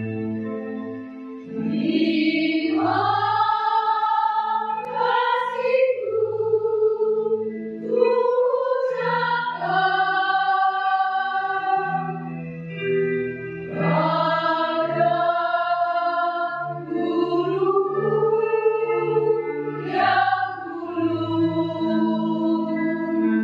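Women's choir singing a slow song in long, held phrases over a steady instrumental accompaniment.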